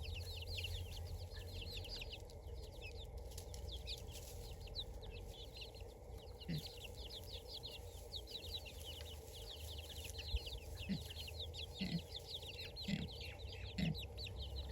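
Chickens: a continuous stream of rapid, high falling peeps, with a few low clucks in the second half.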